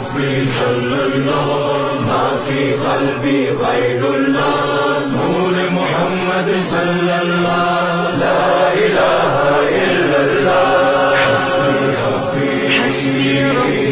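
Devotional song: voices chanting in long, held notes.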